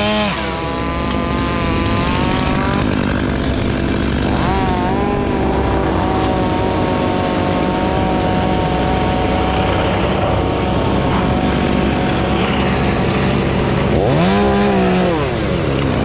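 Two-stroke chainsaw running steadily, its throttle revved up and let back down twice: about four seconds in and again near the end.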